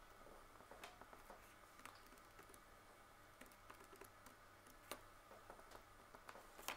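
Faint, scattered clicks of a Casio scientific calculator's keys being pressed, one at a time, with a pen writing on paper between them.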